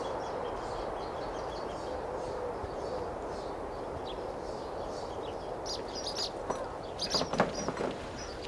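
Small birds chirping against a steady outdoor background, with a few soft, low dove coos in the first three seconds. From about two-thirds of the way in, the chirps grow louder and sharper, with several short clicks.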